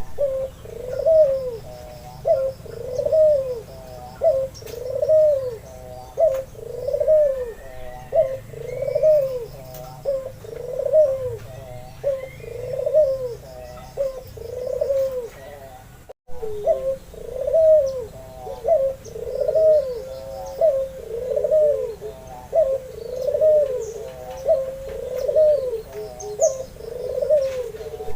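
Albino white puter dove cooing in a steady series, about one arched coo each second, with a brief break about sixteen seconds in. Faint chirps of other small birds sound behind it.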